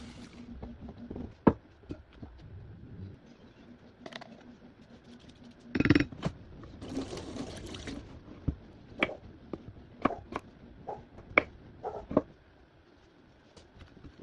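Kitchen handling sounds from cooking: a series of separate knocks and clinks of utensils and cookware, the sharpest about one and a half seconds in, with a short hiss of noise about seven seconds in.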